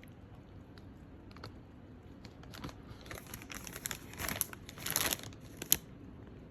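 Plastic chip packet crinkling and crackling in irregular bursts as a dog roots inside it for chips, building up after a quiet start and loudest about four to five seconds in, with one sharp crackle near the end.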